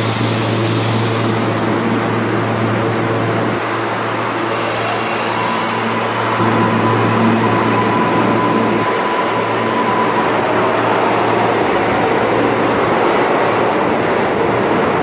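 R143 subway train pulling out of the station and gathering speed past the platform, its cars running along the rails with a steady low hum. A steady whine comes in about five seconds in and fades a few seconds later.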